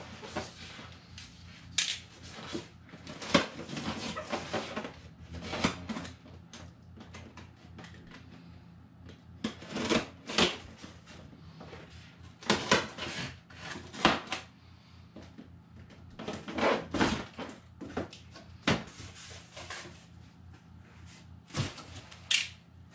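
A large cardboard shipping box being slit along its tape with a box cutter and its flaps pulled open: irregular scraping, rustling and sharp knocks of cardboard, with foam packaging handled near the end.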